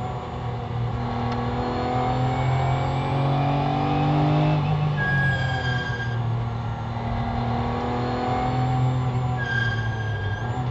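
Porsche GT3's flat-six engine heard from inside the cabin under racing load, its note climbing through a corner, dropping sharply about halfway through, then climbing again and falling off near the end. A brief high-pitched tone sounds twice.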